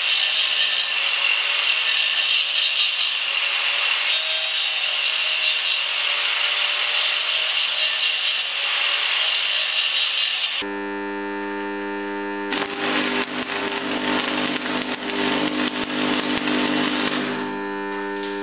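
Angle grinder cutting a groove into mild steel, a loud steady grinding for about ten seconds. It then stops, and an arc welder's transformer hums; from about twelve seconds in, the arc crackles for some five seconds as a weld bead is run into the groove.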